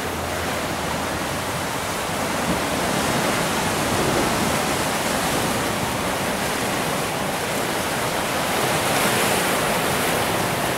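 Surf from a choppy sea washing against rocks and a small beach: a steady rushing noise that swells a little now and then.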